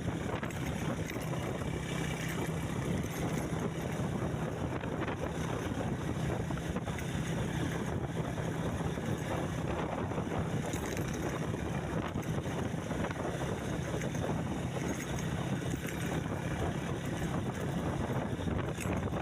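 Motor vehicle engine running at a steady speed with a constant low hum, and wind buffeting the microphone as the vehicle travels.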